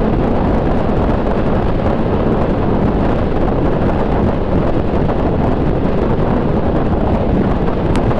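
Wind buffeting a rider's microphone on a scooter at road speed: a loud, steady rush that covers everything else.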